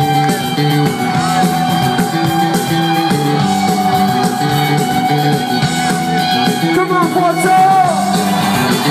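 Live rock band playing through a festival PA, recorded from the crowd: a stepping bass line, guitar and drums under a long held high note that wavers near the end.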